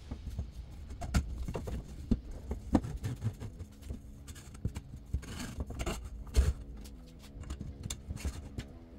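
Steel EMT conduit tubes and black plastic brackets being handled and fitted together on a wooden workbench: scattered clicks, knocks and scrapes at uneven intervals, the loudest knock about six and a half seconds in.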